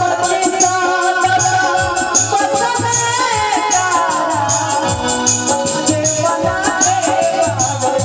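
Live stage-show band music: a gliding melody over a steady beat of low drum hits and regular high ticks.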